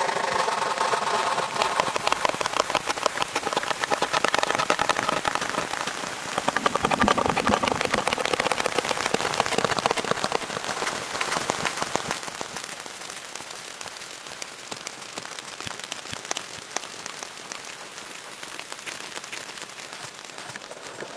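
Steady rain pattering on the forest floor and foliage, louder in the first half and quieter after about twelve seconds.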